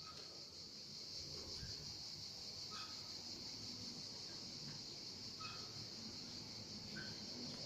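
A creaking swing: short high squeaks that recur every couple of seconds as it swings back and forth, over a steady high insect buzz.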